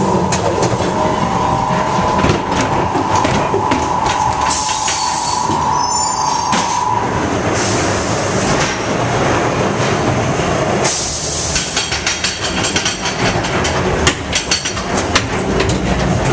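Fairground ghost train car rumbling and clattering along its track through the ride, with a steady high tone over the first seven seconds and several bursts of hissing. A run of sharp knocks and bangs comes near the end.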